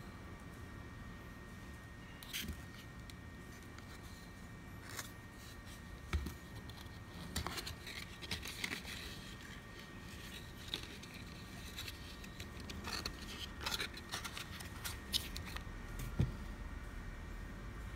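Cardboard box of framer's points being handled and opened by hand: scattered rustling, scraping and small clicks, with two sharper knocks, one about six seconds in and one near the end.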